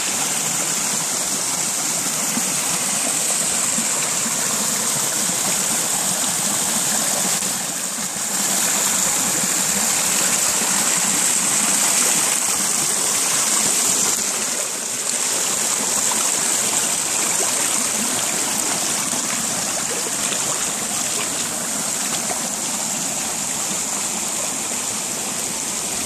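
Mountain stream rushing and splashing over rocks, a steady, loud water noise that dips briefly twice.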